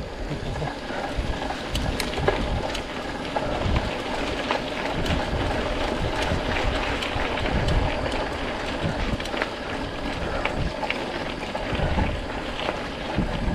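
Mountain bike rolling along a dirt trail: knobbly tyres crunching and the bike and handlebar-mounted camera rattling over small bumps in scattered clicks, with wind rushing across the microphone.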